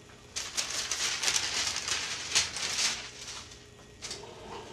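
Paper and fabric rustling and crackling as sublimation paper is handled and smoothed on a cotton shirt, lasting about two and a half seconds, followed by a single light knock near the end.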